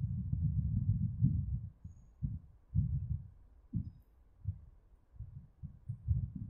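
Low, dull thumps and rumbling of handling noise: a dense stretch in the first second and a half, then separate irregular knocks.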